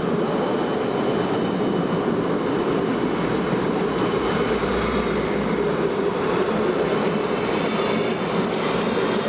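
Siemens low-floor tram running past at close range on street tracks: a steady rolling noise, with thin high whines held over it.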